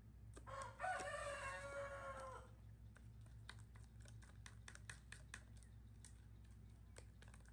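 A rooster crows once, a single call of about two seconds that drops slightly at its end. Then comes a run of light, quick clicks from a spoon stirring a batter mixture in a plastic bowl.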